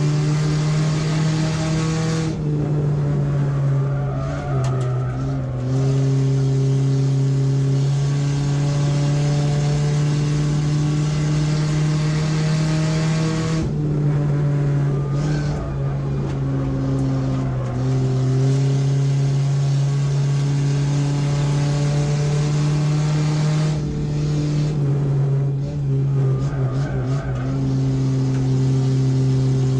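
A race car's engine heard from inside its stripped, caged cabin, pulling hard on track. Three times the engine eases off and its pitch changes before it pulls again, with brief tire squeal after the first and last of these.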